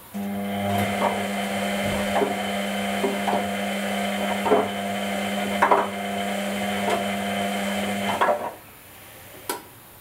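Whirlpool Indiana 1400 front-loading washing machine turning its drum in a wash-cycle tumble. The motor hums steadily, and a soft thud comes about once a second as the wet laundry drops inside the drum. It starts suddenly and stops about eight seconds in, and a single click follows about a second later.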